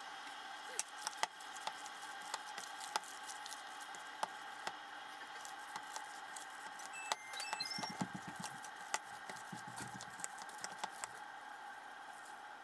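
Hands in plastic gloves kneading a hamburger mixture of minced pork in a stainless steel bowl: wet squishing and many small sticky clicks, over a steady hum.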